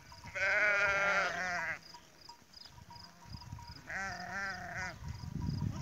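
Two bleats from a mixed flock of sheep and goats: a long, loud, wavering one near the start, and a shorter, quieter one about four seconds in. A faint, regular chirp repeats underneath, about two or three times a second, and a low rumbling noise rises near the end.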